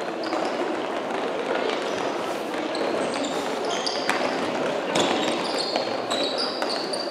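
Floorball play in a large sports hall: repeated short, high squeaks of players' shoes on the court floor and sharp clicks of sticks and ball, over a steady echoing din of movement and voices.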